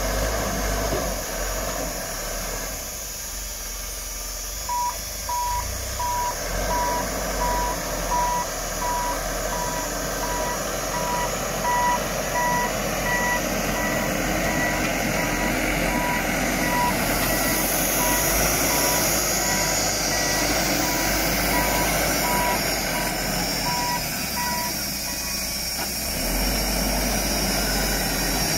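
Macao wheel loader's reversing alarm beeping about twice a second over its running engine. The beeping starts about five seconds in and stops a few seconds before the end.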